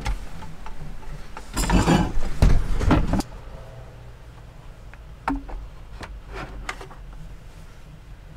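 Wooden camper fittings being handled. About a second and a half in, there is a loud stretch of wood rubbing and knocking as the wooden tabletop is taken down. Later come a few light wooden knocks as a wooden box is set into a wall rack.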